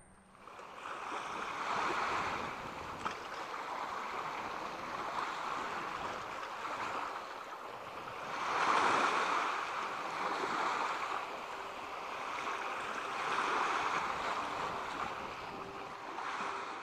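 A rushing noise that swells and ebbs several times, like surf or wind, with no clear pitch. A faint steady tone comes in after about eleven seconds.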